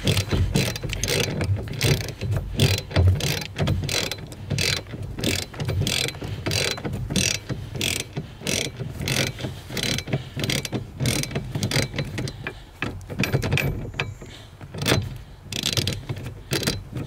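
Hand ratchet clicking over and over, about two to three clicks a second, as a 14 mm anchor bolt is slowly unscrewed.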